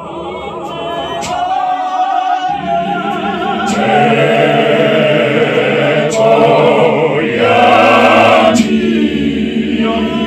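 Intro music of a choir singing, several voices with a wavering vibrato, growing louder over the first few seconds.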